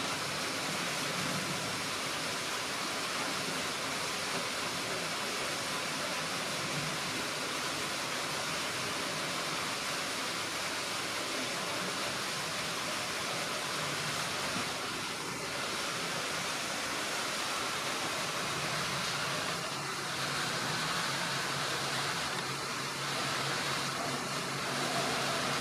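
Steady rushing noise like running water, with a few faint short sounds over it in the second half.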